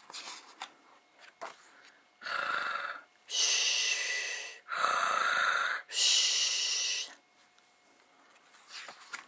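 A person imitating snoring: four drawn-out, hissing snore sounds, a shorter one and then three longer ones, in the middle of the stretch. Faint rustles of picture-book pages being turned come before and after them.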